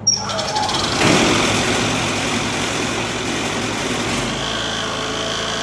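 An engine starts about a second in and then runs steadily.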